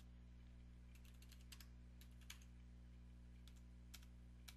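Faint computer keyboard typing: scattered single keystrokes and short runs of keys as a terminal command is typed, over a steady low hum.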